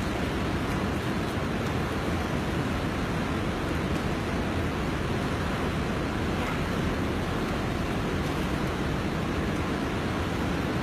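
Steady rushing of a flooded river's water, an even unbroken noise.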